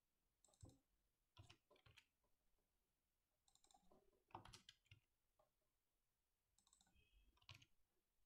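Near silence broken by a few faint, scattered clicks of a computer mouse and keyboard.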